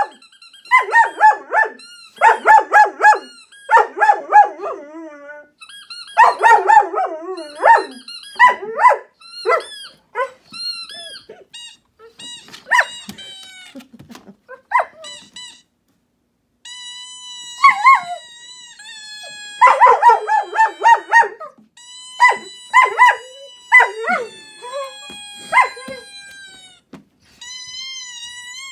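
A squeaky-toy sound played from an iPhone's speaker in bursts of rapid squeaks, answered by a German Shepherd that howls in long, wavering notes through the second half.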